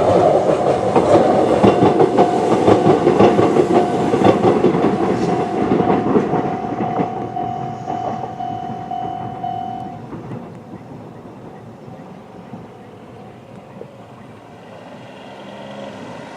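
Konan Railway 7000-series electric train passing through a level crossing and pulling away, its wheels clicking over rail joints and the rumble fading. Over it the crossing's old-type electronic warning alarm sounds at a fairly high pitch, then stops about ten seconds in as the crossing clears.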